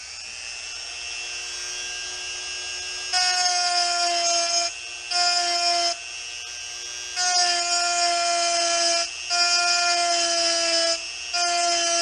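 Handheld rotary tool whining at high speed after spinning up. Its pitch climbs briefly at the start, then holds. The sound turns much louder in five stretches of one to two seconds, with short breaks between, as the bit is pressed against the knife's aluminum handle scale and lifted off.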